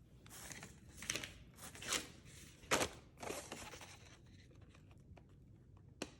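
Packaging being handled and torn: several rustling, crinkling strokes over about four seconds, then a single sharp click near the end.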